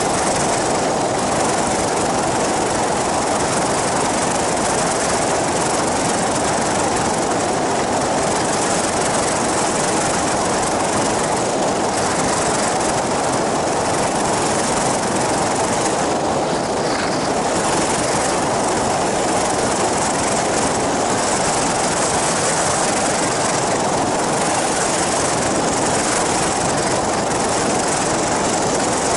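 Flying boat in flight, a powered paraglider with an inflatable boat hull, its caged pusher engine and propeller running steadily with air rushing past. The noise is loud and even, with no change in pitch or level.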